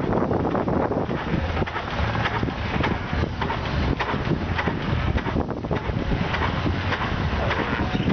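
The Big Four kerosene farm tractor's engine running at idle: a rapid, uneven train of exhaust beats over a steady low rumble. Wind buffets the microphone throughout.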